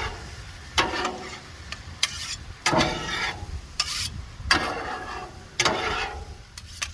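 Spatula scraping and stirring across a Blackstone griddle's steel cooktop, about one stroke a second, over the sizzle of a honey, onion and bourbon mixture boiling down and thickening.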